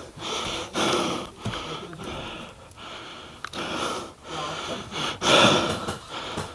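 A person breathing hard close to the microphone: a series of heavy, hissy breaths in and out.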